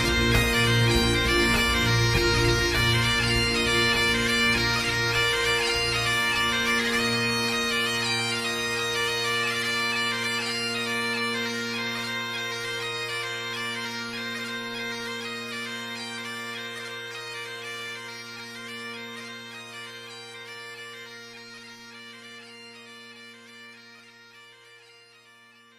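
Background bagpipe music, steady drones under a melody, fading out gradually to near silence by the end.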